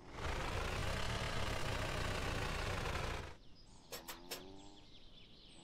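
Cartoon engine sound effect for a combine harvester: a loud engine run that rises and falls in pitch for about three seconds, then cuts to a quieter patch with a few sharp clicks.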